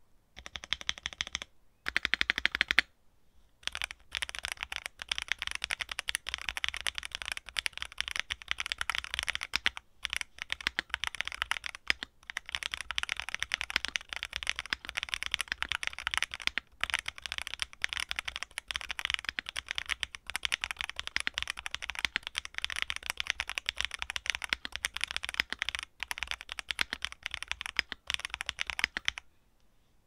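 Continuous fast typing on a mechanical keyboard with KTT Jacaranda linear switches (factory dry-lubed, first batch) in a Cheap60 Pro kit with PC plate, poron foam and PBT keycaps: a dense, even clatter of keystrokes. There is a louder flurry about two seconds in and a brief pause just after it, and the typing stops shortly before the end.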